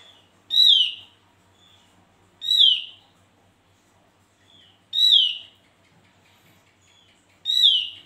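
Opior jawa (Javan grey-throated white-eye) calling: four loud, falling notes about two and a half seconds apart, with softer short notes between them.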